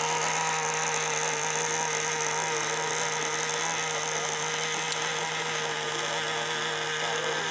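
Small high-revving motor of a radio-controlled model boat running at a steady pitch as the boat cruises.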